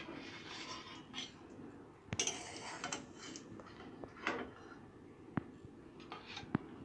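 Long metal spatula scraping and clinking against a steel serving bowl and an iron kadai while curry and fish pieces are lifted out. Faint scraping with a few sharp clinks spread through.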